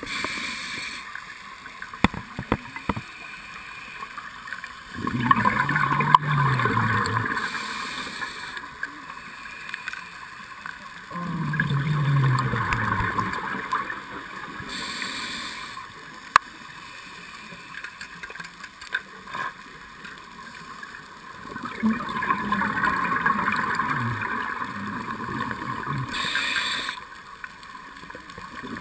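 Scuba diver breathing through a regulator underwater, heard from the camera in its housing: three long exhalations bubbling and rumbling out, each followed by a short hissing inhalation. The uploader hears in this breathing that the diver is shivering from cold.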